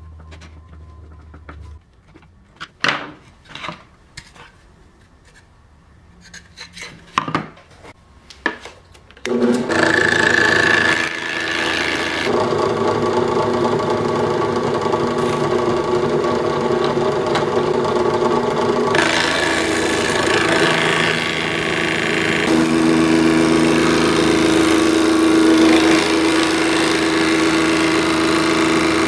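A few scattered knocks and clicks, then about nine seconds in a drill press starts and runs steadily, spinning a Wagner safety planer that cuts across wood. The sound shifts a few times as the cut loads and unloads.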